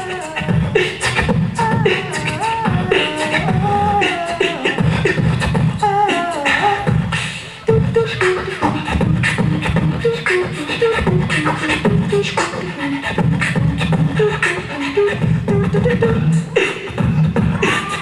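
Live human beatboxing: a mouth-made kick-and-snare beat with sharp clicks, and a wordless vocal melody over it. The beat drops out briefly about seven seconds in, then comes back.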